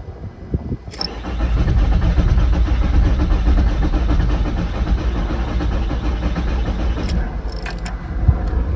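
VW T4's 2.4-litre AAB five-cylinder diesel cranked over by the starter motor without firing, a steady pulsing churn that starts after a click about a second in. It is a cold no-start that cold start spray does not cure, with the glow plugs suspected.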